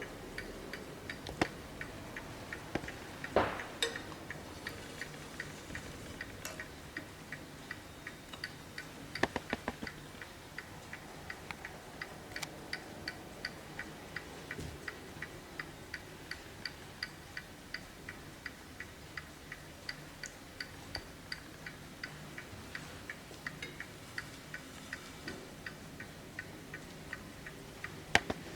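Hermle mantel clock's mechanical movement ticking steadily and evenly, with a few louder knocks scattered through it.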